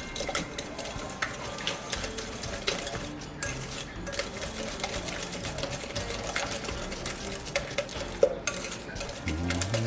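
Whisk beating sugar and eggs in a mixing bowl: a quick, irregular run of light clinks and scrapes against the bowl.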